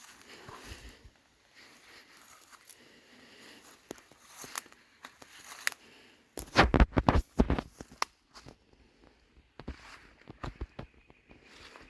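Paintbrush bristles scraping over a wooden bird house, with scattered small clicks and a loud cluster of knocks and clatter about six and a half to seven and a half seconds in.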